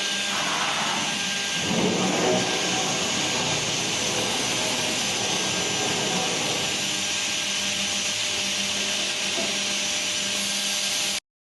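Two-head CNC router running: a steady machine whine with several held tones over a dense hiss, rougher for a moment about two seconds in. The sound cuts off suddenly near the end.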